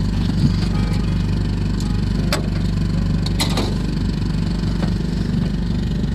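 Engine idling steadily with a low, even hum, broken by a few sharp clicks about two and three and a half seconds in.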